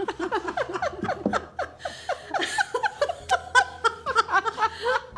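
Two women laughing together, in many short repeated bursts.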